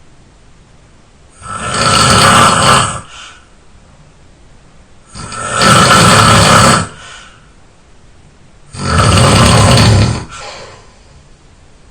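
A person snoring: three loud snores, each lasting about a second and a half and spaced about three and a half seconds apart. Each snore trails off into a short, softer breath.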